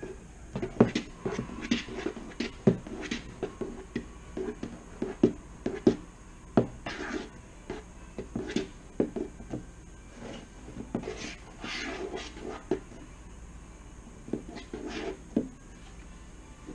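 A spoon stirring a thick glue and shaving-cream slime mixture in a plastic bowl: irregular scrapes and knocks of the spoon against the bowl.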